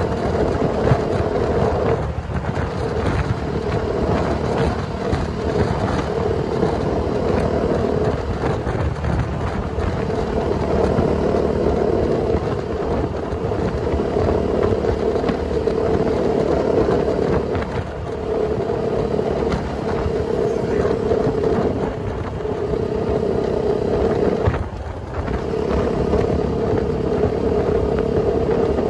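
Husqvarna motorcycle engine running steadily at highway cruising speed, over wind and road noise. The engine note dips briefly three times, about 2, 18 and 25 seconds in.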